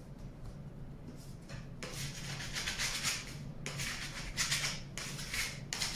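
A hand rubbing across a stainless steel worktop in repeated wiping strokes, cleaning off clay and flour residue. About four strokes, starting about two seconds in.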